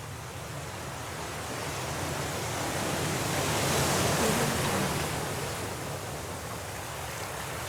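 Stormy sea waves: a continuous rush of surf that swells to a peak about four seconds in, then eases back.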